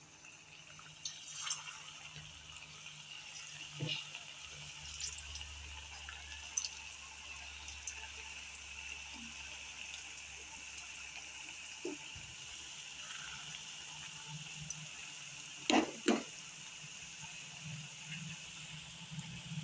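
Hot oil sizzling and bubbling steadily in an aluminium kadai as dough sticks deep-fry, with a few small taps as more pieces are slipped in. Two sharp knocks close together about three-quarters of the way through.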